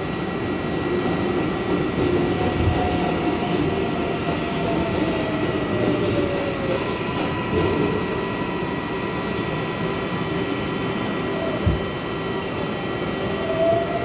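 R142A subway car running and slowing into a station: a continuous rumble of wheels on rail with steady electrical tones, and a motor whine that falls in pitch from a few seconds in as the train brakes.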